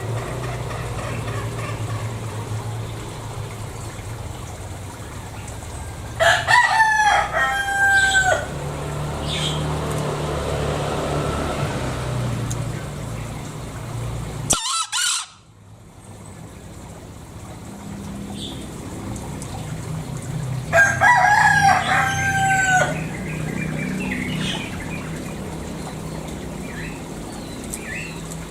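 Green junglefowl (Gallus varius) rooster crowing twice, about six seconds in and again about twenty-one seconds in, each crow a short high call in two parts. A steady low hum runs underneath, broken off abruptly by a short burst of noise halfway through.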